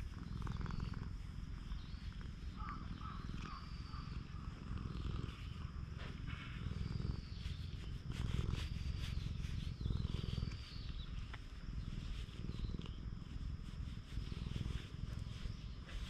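Orange-and-white cat purring steadily, a continuous low rumble, as it is stroked under the chin and on the head.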